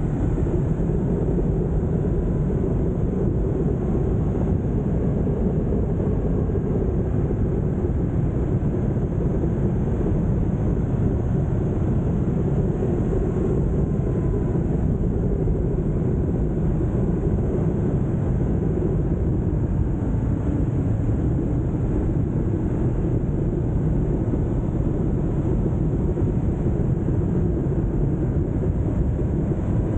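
Ducati Multistrada motorcycle under way: steady wind rush buffeting the mounted camera's microphone, with engine and road noise underneath.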